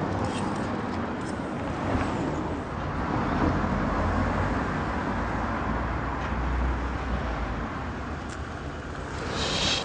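Street traffic noise: a steady hum of road vehicles, with a low rumble that swells through the middle and fades, like a vehicle passing close by.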